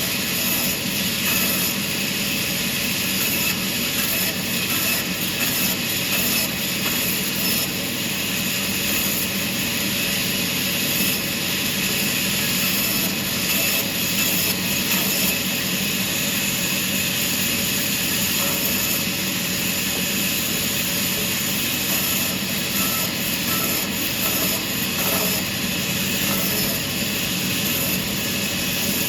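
Sawmill machinery running steadily: a constant mechanical hum with a faint high whine and no pauses or cuts in it.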